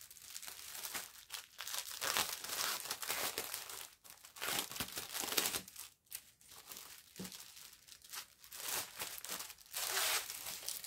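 Clear plastic wrapping crinkling and tearing in irregular bursts as a cross-stitch kit is unwrapped by hand.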